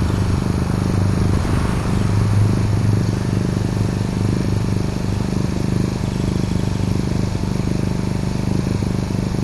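Yamaha EF1000iS inverter generator's 50cc four-stroke engine running steadily at its economy idle.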